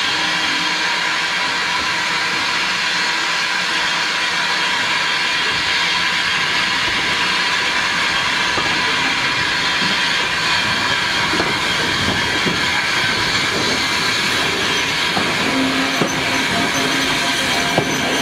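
Steam-hauled heritage train carriage on the move, heard from the open window: a steady hiss of running noise, with the wheels clicking over rail joints from about halfway and a few sharper knocks near the end.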